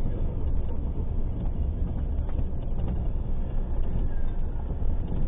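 Steady low rumble of a car driving: engine and road noise heard from inside the cabin.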